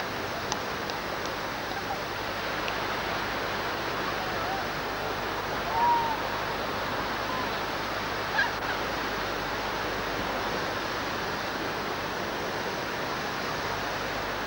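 Steady rushing noise, with two brief faint calls or chirps in the middle.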